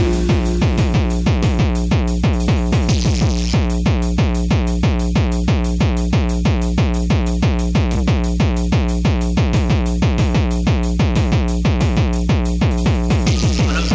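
Live electronic tekno played on a drum machine and synthesizer: a fast, even kick drum whose pitch drops on each hit, over a steady synth bass line. A short bright noise sweep comes in about three seconds in.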